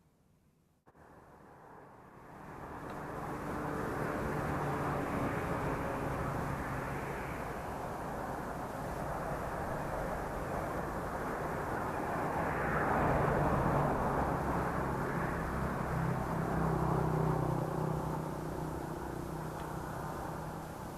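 Steady engine drone from a passing motor, with a low hum underneath. It comes in about a second in, builds over a few seconds, is loudest around the middle and eases slightly near the end.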